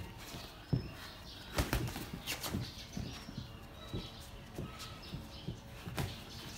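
Boxing sparring: irregular thuds and slaps of padded gloves landing on gloves, arms and headgear, some in quick pairs.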